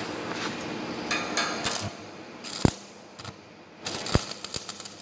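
Stick (arc) welding on steel plate: the arc strikes and crackles in short sputtering bursts, with several sharp pops and a rapid run of clicks near the end.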